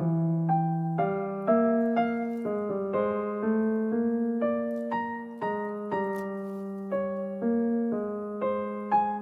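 Background piano music: a gentle melody of single notes struck about twice a second, each note fading before the next.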